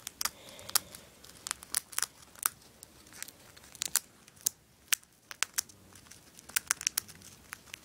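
Hamster gnawing a monkey nut: its teeth crack and tear the dry peanut shell in irregular sharp clicks and crackles, sometimes several close together, with short pauses between.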